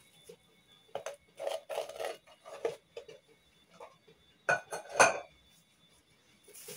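Pots and a glass pot lid being handled and set down on a glass-ceramic stovetop: a few scattered knocks and clinks, the two loudest about four and a half and five seconds in.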